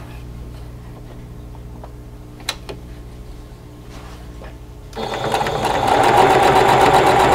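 Singer sewing machine stitching a seam through two cotton quilt squares, starting up about five seconds in and running steadily at speed. Before that there are only a couple of light clicks.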